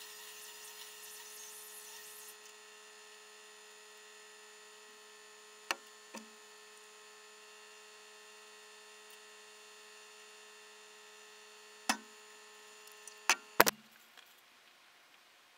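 A steady electrical hum made of several even tones, broken by a few sharp knocks: one pair about six seconds in, one about twelve seconds in, and a pair near the end, after which the hum stops.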